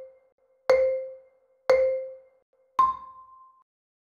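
Quiz countdown-timer sound effect: a short struck tone about once a second, each dying away quickly. The last is about an octave higher and rings a little longer, ending the count.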